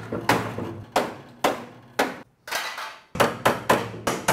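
Heavy hammer striking the rusty sheet-steel rear floor panel of a Daihatsu Mira to break it loose, each blow sharp with a short metallic ring. The blows come about one every half second, then a quicker run of five or six near the end.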